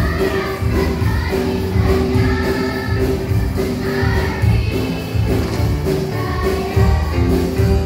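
A children's choir singing together over musical accompaniment with a steady beat.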